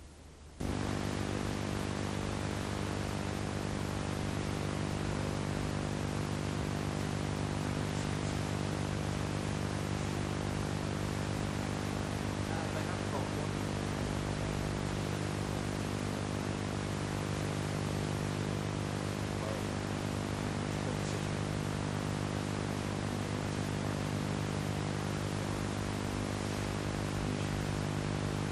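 Steady hiss with a low electrical hum and buzz, the noise of a blank audio track on old videotape. It cuts in abruptly about half a second in and then holds level.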